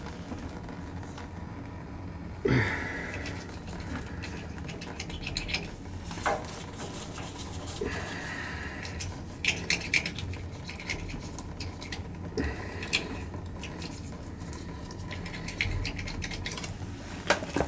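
A metal wire scraping and clicking against the brass valve and fittings at a heating-oil tank's outlet as it is pushed and worked up inside to clear sludge. There are irregular small clinks and scratches, a few louder knocks, and a steady low hum underneath.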